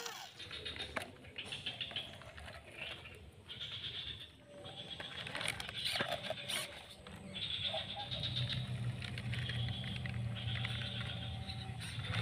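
Small electric motor and gearbox of a toy RC pickup truck whirring in short stop-start bursts as it drives over dirt. About eight seconds in, a steady low hum joins and holds.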